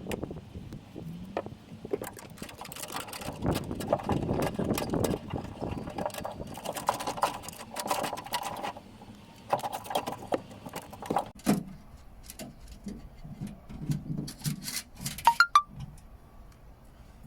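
Irregular rubbing, rustling and clicking as a reverse-camera cable is pushed and pulled through a car's interior panels, with a few sharp ticks near the end.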